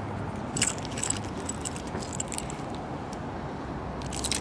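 Car keys and a remote key fob on a ring jangling in the hand, giving a few light metallic clinks over a steady low hum. The clinks are loudest about half a second in and again just before the end.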